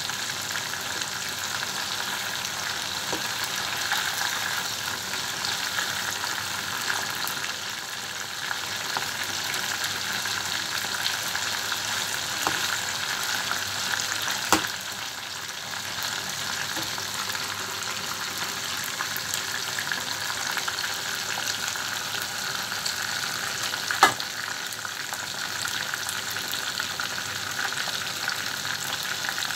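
Chicken pieces frying in hot oil in a pan, a steady sizzle, with a metal spoon stirring through them and knocking sharply against the pan twice, about halfway through and again later on.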